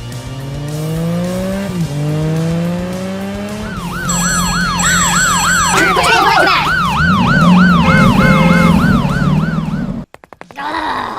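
Two rising whines, then a siren wailing in quick sweeps of a little over two a second, which cuts off suddenly near the end.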